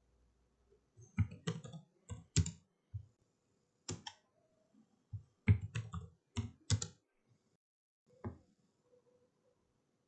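Computer mouse clicks and keyboard keystrokes, irregular sharp clicks coming in clusters about a second in and again between five and seven seconds, with a few single clicks between.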